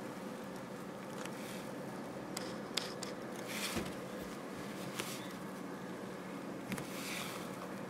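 Lada Granta's plastic sun visor being handled and pulled down: a few light clicks and brief rubbing over a low steady hiss.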